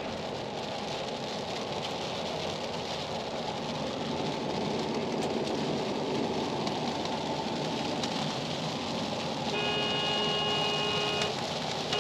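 Steady road and traffic noise, with a vehicle horn held for under two seconds near the end.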